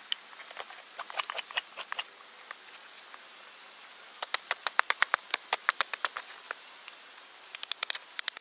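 Runs of quick, sharp light knocks, about five or six a second, with a faster cluster near the end. They come from hand work with a hatchet on a fresh birch spoon blank being fixed to a dead log with a metal hook.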